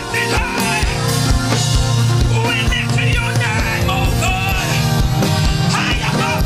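Live gospel praise music: a band plays a steady drum beat and bass while a woman sings lead into a microphone.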